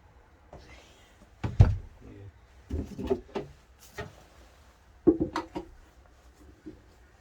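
Knocks and clunks from things being handled and set down by hand during work on the engine. The loudest is a single thud about one and a half seconds in, then two short clusters of clatter around three and five seconds in.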